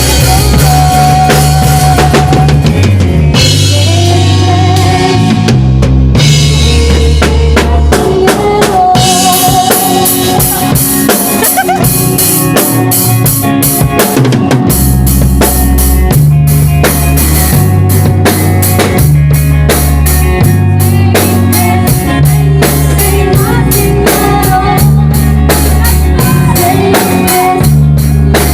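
Band playing a song: a drum kit with kick and snare keeps a steady beat under bass guitar and a held melody line.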